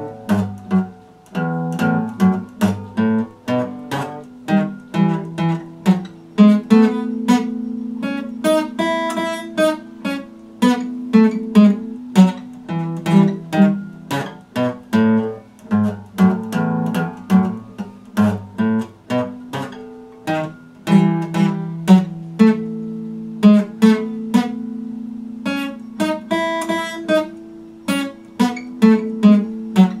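Epiphone acoustic guitar strummed with a pick, chords struck in a steady rhythm.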